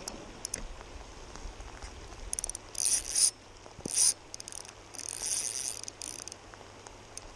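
KastKing Zephyr 1000 spinning reel's drag buzzing in four short runs as a hooked chinook salmon pulls line off against light 0.12 mm line. The first runs come about two seconds in, and the last and longest lasts about a second and a half.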